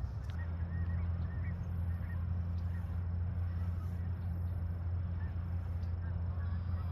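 A steady low hum, with a few faint short chirps above it.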